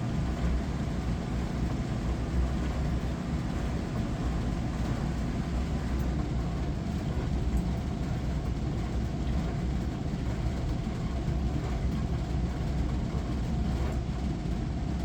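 Glass-front Hava dishwasher running its wash cycle: a steady, unbroken low rumble of the pump with a hiss of water spraying over the dishes.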